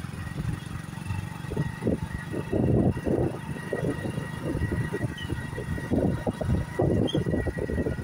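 Wind buffeting the microphone in irregular low gusts, strongest about three seconds in and again near seven seconds, over a faint steady high tone.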